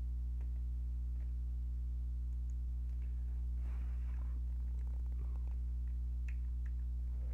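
Steady low electrical hum with a stack of evenly spaced overtones, the mains hum picked up by the recording, with a few faint clicks over it.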